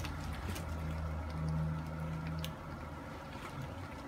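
Low steady hum of an electric cooktop heating a skillet. The hum fades about two and a half seconds in, with a few faint clicks.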